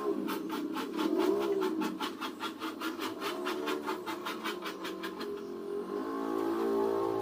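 A hand tool rasped back and forth in quick strokes along the edge of a high-pressure laminate (HPL) sheet, about four to five strokes a second, stopping about five seconds in. A low wavering tone runs underneath.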